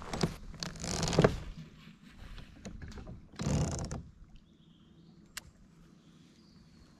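Fishing tackle being handled on a kayak: three short rustling, whirring bursts in the first four seconds and a couple of sharp clicks, then quieter.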